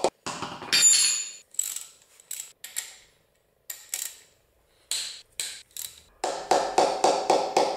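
Hand ratchet wrench clicking as it loosens the connecting-rod cap nuts on a small-block Chevy engine during teardown, in short runs with pauses, then a fast steady run of about five clicks a second near the end. A louder metal clank comes about a second in.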